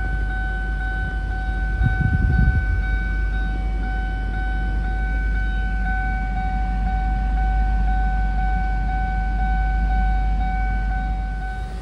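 Car's electronic warning chime held as a steady high tone, over a low rumble, with a low thump about two seconds in.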